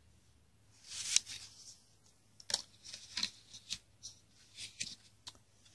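Paper instruction sheet and plastic packaging being handled. There is a soft rustle about a second in, then scattered small clicks and crinkles.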